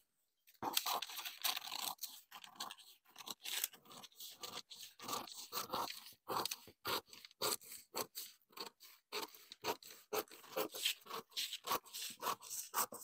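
Scissors cutting through a large sheet of paper pattern, snip after snip in a steady run that starts about half a second in.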